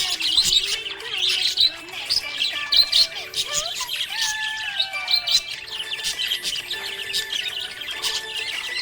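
Budgerigar chattering: a rapid, continuous stream of high chirps and warbles.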